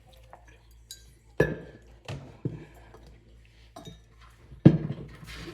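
Kitchen dishes and containers clinking and knocking as they are handled. There are a few separate knocks, the loudest near the end.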